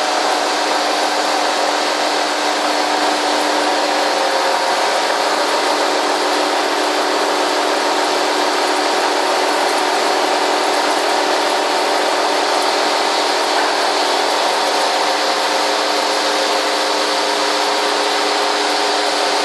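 Right-angle milling head on a boring and milling machine face-milling a steel plate: steady cutting noise with several steady tones humming over an even hiss.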